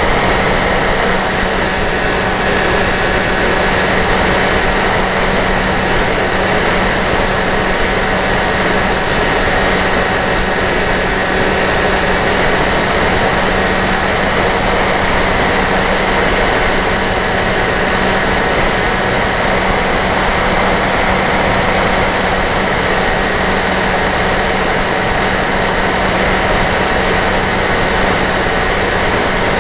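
Dynam Hawk Sky RC plane's electric motor and pusher propeller running steadily in flight, with rushing wind noise, heard from on board the plane. It holds an even drone with a low steady hum.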